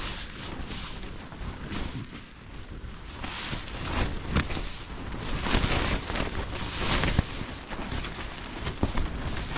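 Naturehike Cloud Tunnel 2 tent battered by storm wind, heard from inside: gusts swelling and easing, with the fabric flapping and snapping sharply again and again.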